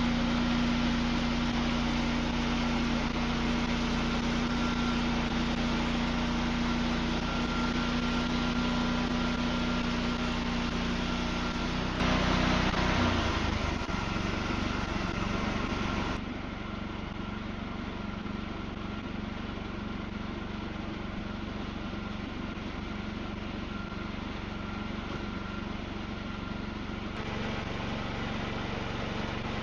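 Wood-Mizer LX55 band sawmill running steadily at working speed. About twelve seconds in, its sound swells briefly and the engine pitch drops. A few seconds later it settles to a quieter, lower steady running, like an idle.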